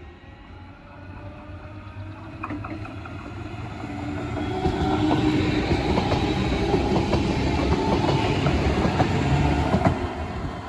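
A DB class 425 electric multiple unit approaches and passes close by. Its running noise grows louder over the first few seconds, with the wheels clicking over rail joints, then starts to fade near the end.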